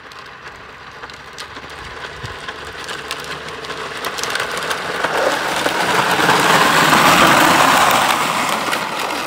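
Hard plastic wheels of a child's ride-on toy trike rolling and grinding down a concrete path, growing steadily louder as it comes closer and is loudest as it passes close by near the end.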